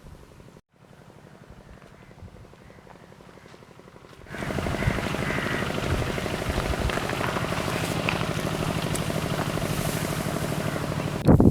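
A steady, pitched motor hum with a buzzing edge comes in suddenly about four seconds in, after a quiet start.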